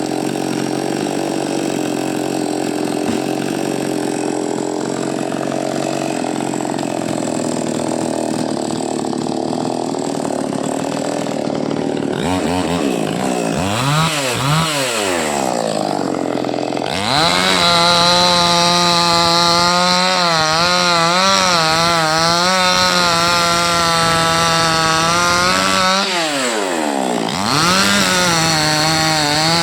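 Chainsaw running and cutting into a coconut tree trunk, its engine note wavering under load. About twelve seconds in the revs drop and climb back up twice, then it runs at a higher pitch, sagging once more briefly near the end.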